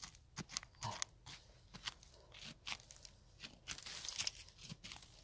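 A small hand digging tool chopping and scraping into stony soil around a wild bellflower root, with irregular crunches and sharp clicks as it hits stones and gravel, busiest about four seconds in.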